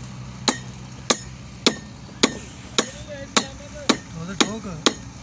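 Steady hammering, sharp strikes at about two a second.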